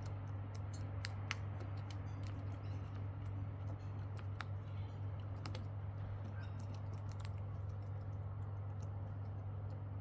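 Irregular sharp clicks and taps of birds' beaks pecking at food on a ledge, over a steady low hum.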